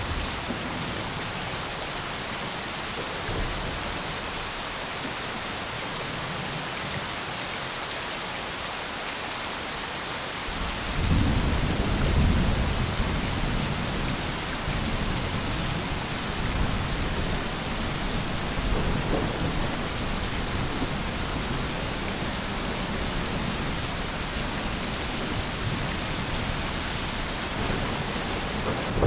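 Thunderstorm: steady rain, with a low roll of thunder coming in about ten seconds in, strongest for a couple of seconds and then rumbling on under the rain.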